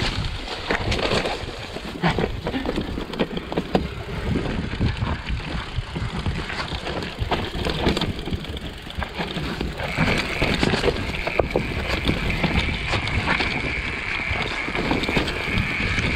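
Mountain bike rattling and clattering over rocks and roots on a dirt forest trail, with many sharp knocks from the frame and components and tyre noise on the ground. A steady high-pitched whine joins about ten seconds in.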